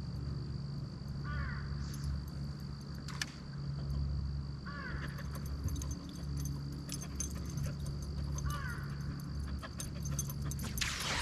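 Three short, harsh animal calls a few seconds apart, over a steady low hum and a faint high whine, with a couple of sharp clicks.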